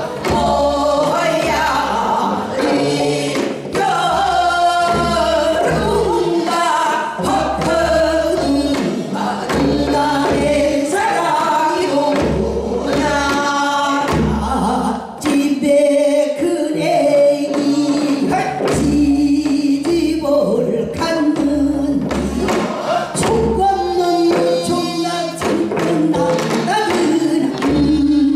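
Women singers performing a Korean traditional song (gugak) into microphones, amplified through a hall's sound system, over a regular low beat of accompaniment.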